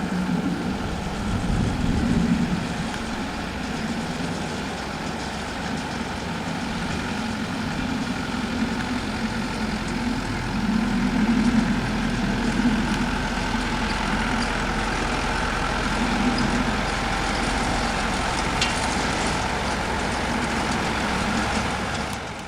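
An engine running steadily, with a low hum that swells and eases every few seconds and fades out at the very end.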